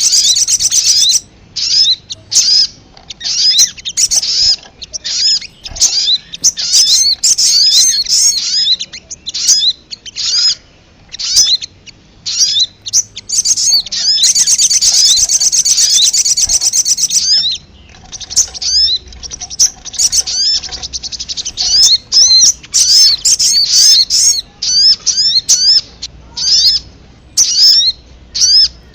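Sogon (sogok ontong) bird calling in a lure recording: rapid sharp, high chirps and upswept notes in quick irregular runs, broken by a long fast trill at the start and another about halfway through.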